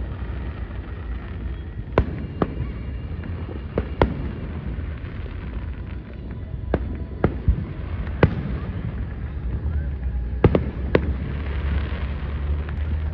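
Aerial fireworks shells bursting in a show, heard as sharp bangs at irregular intervals of about one to two seconds, some in quick pairs, over a steady low rumble.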